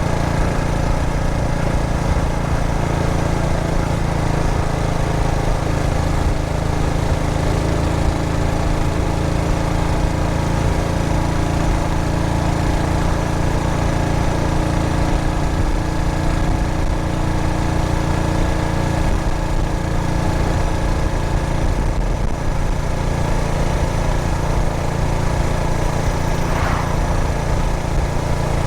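Yamaha SR400's single-cylinder engine running at a steady pace under way.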